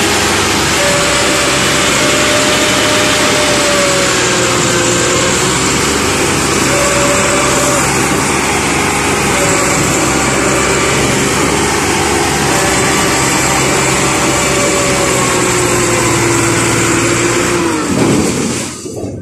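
Farm tractor's diesel engine running hard under heavy load, pulling a trailer out of deep mud, its pitch wavering slightly as it strains. The sound cuts off abruptly at the very end.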